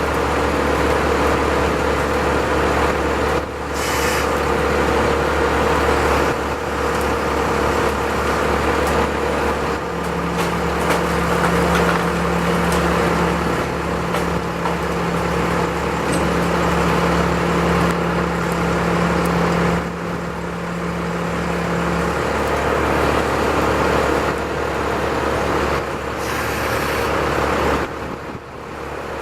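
A large engine running steadily under load, with a low constant hum; a steady whine comes in about a third of the way through and stops about twelve seconds later.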